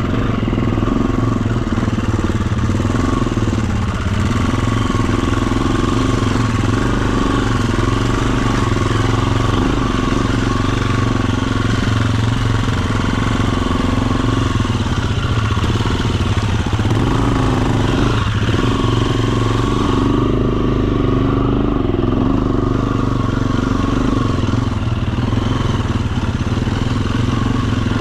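Dirt bike engine running at fairly steady, low revs, dipping briefly and picking up again about four seconds in and again around eighteen seconds in.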